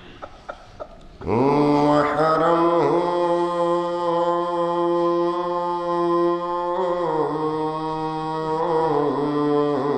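A man's voice chanting in a slow, drawn-out melodic style, coming in about a second in and holding one long steady note for several seconds before the melody moves on.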